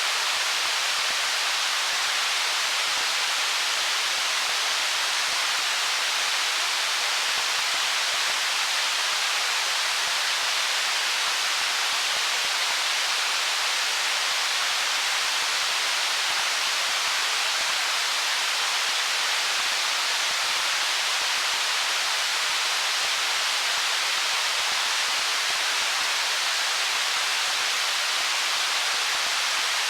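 Stream water flowing among stones, a steady, even rush with no single splashes standing out.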